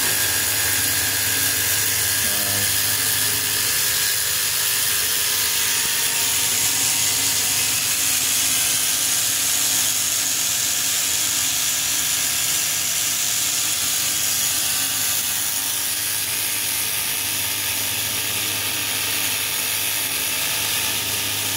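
Small electric motor driving twin propeller shafts through 3D-printed plastic gears, running steadily with a really loud grinding from the printed gears.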